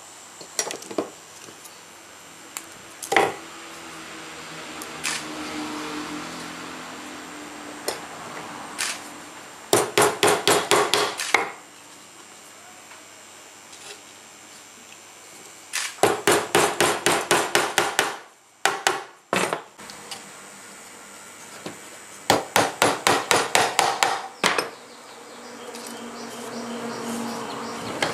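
Small hammer tapping thin metal strip on a wooden bench while a batik stamp block is being shaped: a few single knocks, then three quick bursts of about ten light, rapid strikes each, with a faint steady buzz underneath.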